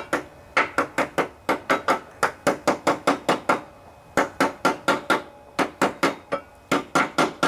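Hammer tapping a new bearing into a John Deere LA145 mower deck's spindle housing: quick, light metallic taps about four a second, each with a short ring, broken by two brief pauses.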